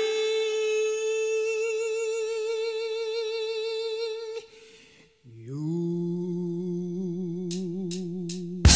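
A male soul singer's unaccompanied voice from a recorded song. He holds one long high note, breaks off briefly, then slides up into a lower note held with a wide vibrato. The full band comes in loudly at the very end.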